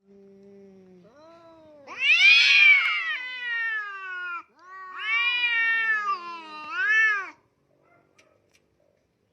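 A cat meowing loudly three times: a long drawn-out meow, a second one, then a short one, each rising and then sliding down in pitch.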